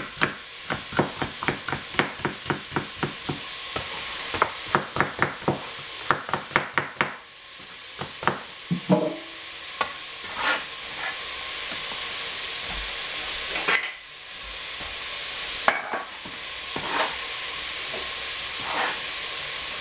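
Cleaver chopping a red bell pepper into strips on a plastic cutting board, quick even knocks about three to four a second, with a short break about three seconds in and stopping about seven seconds in. After that come a few scattered knocks as the strips are gathered up and put into a metal pot, over a steady sizzle of onion frying.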